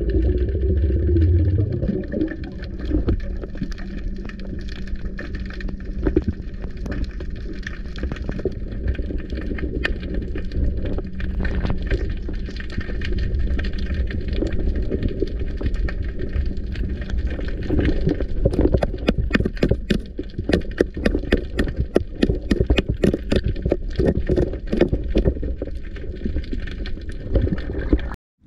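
Underwater sound through a diving camera: a low, muffled water rumble with many sharp crackling clicks, the clicks growing thicker about two-thirds of the way in.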